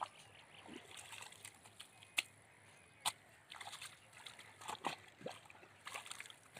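Water sloshing and splashing in a shallow irrigation channel as a spade cuts and scoops wet mud in irregular strokes, with two sharp clicks in the middle.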